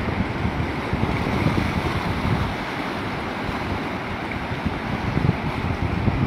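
Floodwater rushing in a steady wash of noise, with wind buffeting the microphone.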